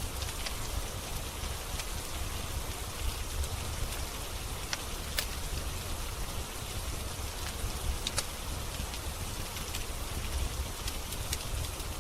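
Steady rain hissing over a low rumble, with a few sharp crackles and pops from a wood fire scattered through it.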